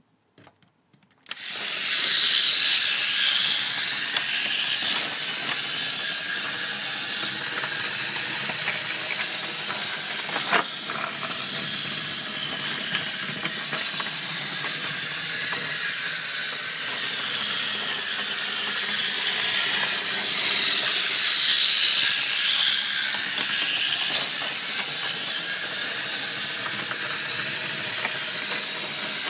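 Steady hissing noise that starts abruptly about a second in and swells twice, once early and again about twenty seconds in, with a single click about ten seconds in.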